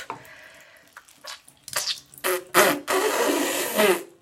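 Water splashing and running in a bathtub, with a few short sharp knocks and splashes in the first half and a louder steady wash of water in the second half.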